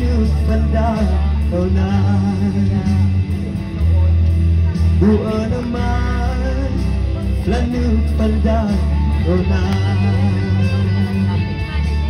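A man singing a gospel song into a microphone through a PA system, over loud amplified instrumental accompaniment with a strong bass line and guitar.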